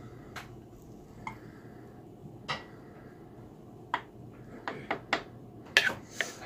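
A metal spoon tapping and scraping against a glass bowl of thick waffle batter while scooping it out, in about nine separate clinks that come closer together in the second half and are loudest about six seconds in.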